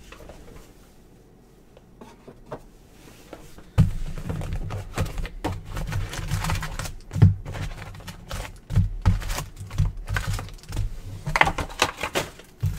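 Hands opening and handling trading-card boxes and packs: irregular clicks, knocks and crinkling of cardboard and foil wrappers, sparse at first and busy from about four seconds in.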